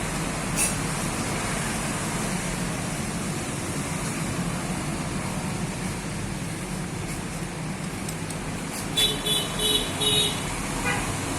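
Steady traffic rumble, with four short horn-like beeps close together near the end.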